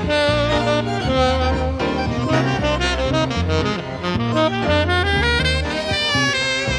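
Tenor saxophone playing a slow tango melody with a wide vibrato, over held electric bass notes and the rest of a small band.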